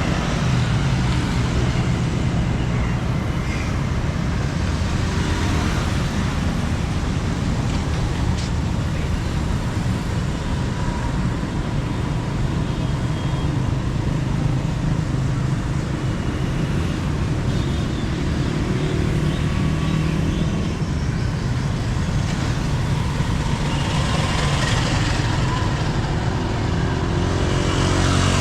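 Steady road traffic on rain-soaked streets, a continuous mix of vehicle engines and tyre noise, swelling louder near the end.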